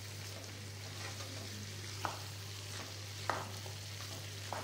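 A spatula stirring small Indian gooseberries in oily chilli masala in a frying pan, with a low sizzle. Three light knocks of the spatula against the pan come about two, three and four and a half seconds in. The amla pickle is being sautéed on a low flame until the oil separates.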